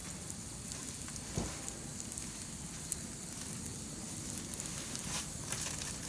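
Wood campfire burning, with a steady hiss and scattered sharp crackles and pops from the burning wood.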